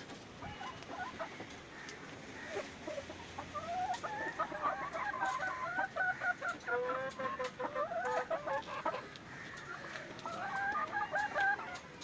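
A flock of BV 380 hens clucking and calling over each other, building to a dense run of calls about four seconds in that lasts some five seconds, then another short burst near the end.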